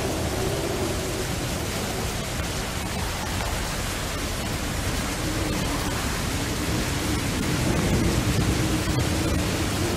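Dark ambient music: a steady hiss of noise over a low drone that wavers slowly in pitch.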